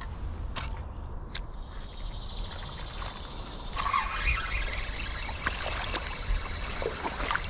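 Creekside outdoor ambience: a steady high insect buzz, the trickle of flowing water and a few light clicks.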